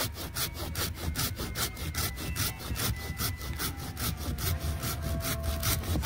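Hand pruning saw cutting through the trunk of a small grand fir in quick, even back-and-forth strokes, with the trunk nearly cut through and weakening.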